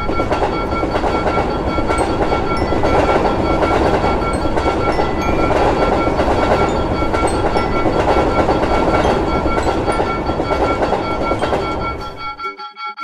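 Passenger train passing at speed: a steady, loud noise of wheels on rails that cuts off suddenly about twelve and a half seconds in. Steady high ringing tones carry on underneath.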